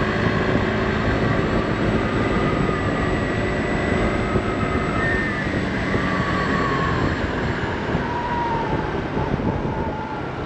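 Honda Click 160 scooter's single-cylinder engine running at a steady cruise under wind and road noise, its pitch drifting slowly and easing off a little near the end.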